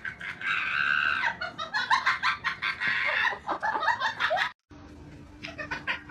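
An animal calling in quick, short, repeated bursts, cut off abruptly after about four and a half seconds; then a steady low hum with a few scattered short calls.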